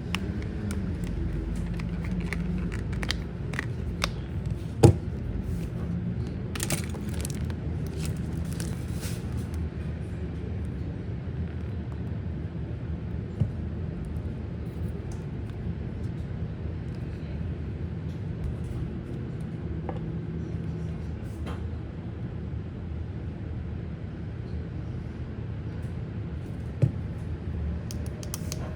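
Steady low background rumble with scattered light clicks and taps, and a sharper click about five seconds in and again near the end.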